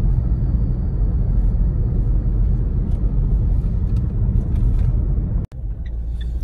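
A car driving, heard from inside the cabin: a steady low rumble of road and engine noise. It cuts out for an instant about five and a half seconds in.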